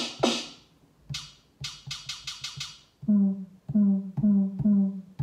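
Drum samples taken from a Pocket Operator PO-32 Tonic, played back one hit at a time from a 1010music blackbox sampler's pads. There are two noisy snare-like hits, then a quick run of six short high ticks like hi-hats, then four pitched, ringing hits.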